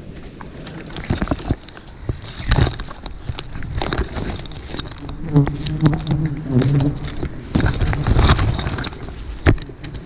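Wild bees buzzing close by in a low, steady drone, clearest about halfway through, among many sharp clicks and snaps of brush being handled.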